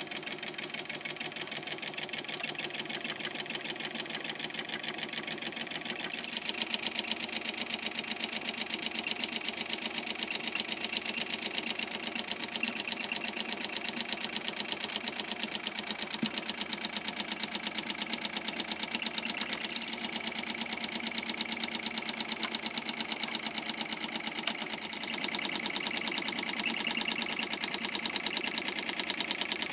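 Wilesco D430 live steam model engine running at a steady speed, a fast, even mechanical rattle. It grows louder about six seconds in and again near the end.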